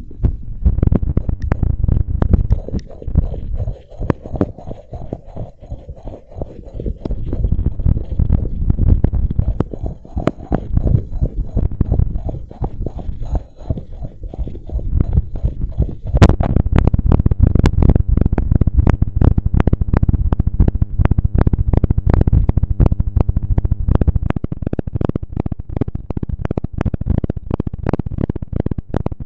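A person's heartbeat picked up by a microphone on the chest, pounding fast under exertion, with low rumbling swells over it. About halfway through it gets louder and the beats come thicker.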